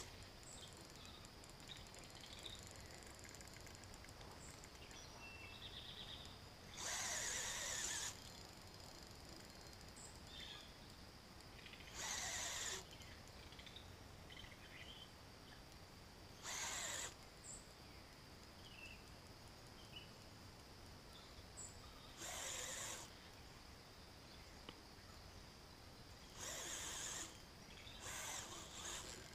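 Electric power-assist fishing reel's motor running in short bursts of under a second, six times at roughly four- to five-second intervals, as a hooked carp is reeled in. A faint steady high-pitched tone lies underneath.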